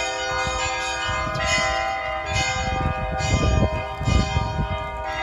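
Orthodox church bells ringing: several bells struck over and over, a fresh strike about once a second, their tones overlapping and sustaining.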